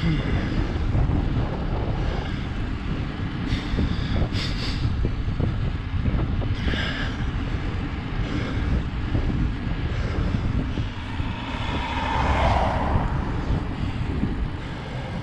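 Wind rumbling on the microphone, a steady low noise, with a few brief higher-pitched sounds about four and seven seconds in.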